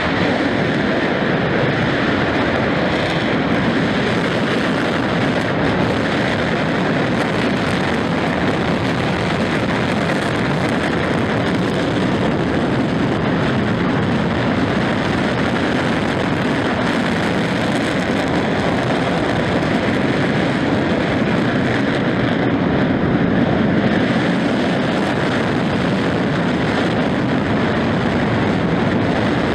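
Dukono volcano's vent giving off a loud, steady, jet-like rushing noise of continuous degassing, even in level throughout.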